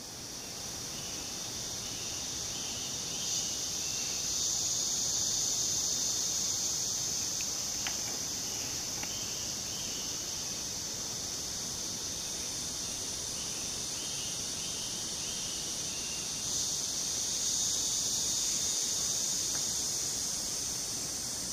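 Tropical forest insect chorus: a dense, steady high-pitched buzz that swells louder twice. Faint short chirps come in runs beneath it.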